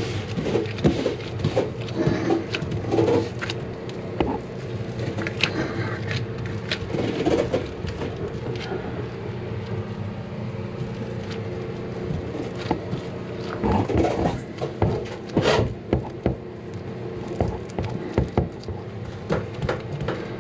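Gloved hands handling and pressing fiberglass cloth against a fiberglass hull, making scattered small taps, rubs and knocks. There is a cluster of louder knocks about two-thirds of the way through, all over a steady low hum.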